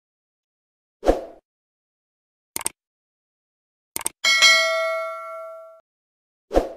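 Sound effects for a subscribe-button animation: a short hit, two mouse clicks, then a bright bell-like notification ding that rings out and fades over about a second and a half, and another short hit near the end.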